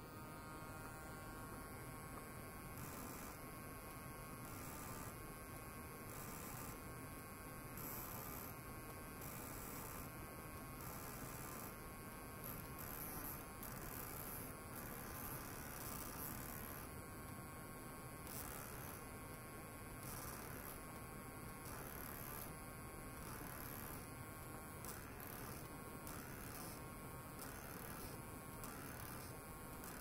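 Faint electrical hum and buzz from an ultrasonic probe rig driven by a function generator, with clusters of high tones that switch on and off about once a second.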